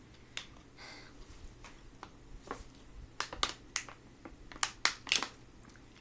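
A plastic drink bottle being handled, opened and drunk from: a scatter of sharp clicks and crackles from the bottle and its screw cap, thickest and loudest in the last couple of seconds.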